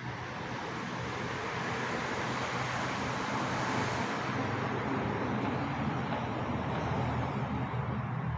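Vehicle noise: a broad rush of engine and road noise that builds over the first few seconds and then holds, over a steady low hum.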